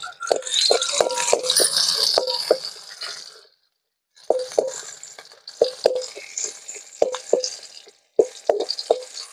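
Steel ladle clinking and scraping against an aluminium kadai in quick repeated strokes as sliced onions and green chillies fry in sesame oil with a hissing sizzle, the sizzle loudest in the first few seconds. The stirring stops for a moment just before the middle, then carries on.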